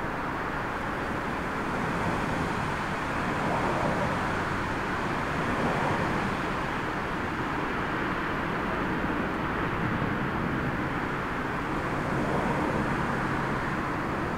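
Airbus A380's four jet engines on final approach, a steady broad rush of noise.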